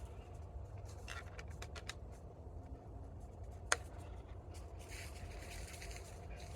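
Faint scrapes and light taps of hardware being handled, with one sharp metallic click a little past halfway, over a steady low rumble.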